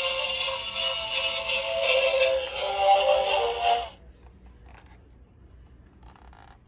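Battery-powered Lightning McQueen bump-and-go transforming toy car playing its built-in electronic tune with synthetic singing. The music cuts off suddenly about four seconds in, leaving a few faint handling clicks.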